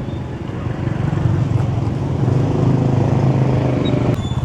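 Motorbike engine running close by amid street-market hubbub, growing stronger and stopping abruptly near the end.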